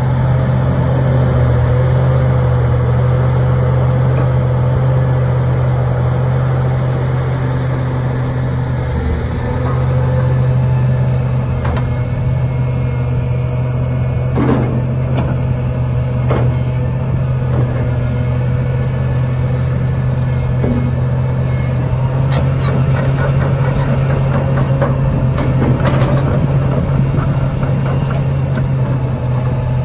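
Hitachi ZX450LC-3 excavator working: its six-cylinder diesel runs steadily under load with a steady higher whine over the engine note as the boom, arm and bucket move. Several metallic clanks and knocks come in the second half, a cluster of them near the end as the machine moves on its tracks.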